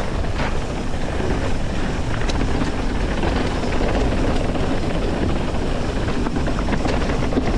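Mountain bike descending a fast dirt trail at speed: a steady rush of wind on the action camera's microphone with tyre rumble, and a few sharp clicks and rattles from the bike over bumps.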